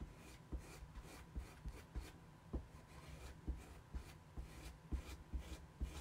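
Squeegee scraping paste across a silkscreen transfer in short, quick strokes, about three a second, each with a soft knock on the surface beneath.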